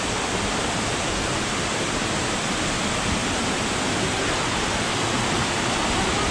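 Small waterfall splashing with a steady, even rush of falling water.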